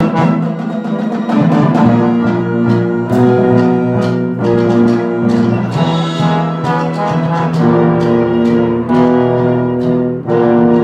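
Wind orchestra playing loud, sustained brass chords, with a tuba played close by carrying the low notes. The chords change every second or so, punctuated by sharp accented hits.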